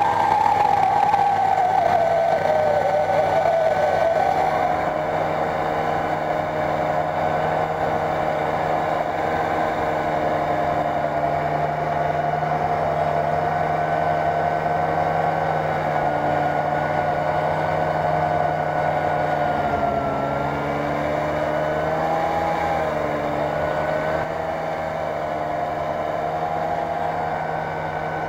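Snowmobile engine running steadily as the machine ploughs through deep powder snow. Its pitch sags over the first few seconds, dips again about twenty seconds in, then picks back up.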